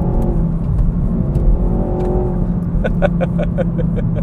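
Renault Mégane's turbocharged petrol engine heard from inside the cabin, droning steadily under load in fifth gear at about 2000 rpm: the engine is below its power band and gives little pull. A quick run of short pitched pips sounds near the end.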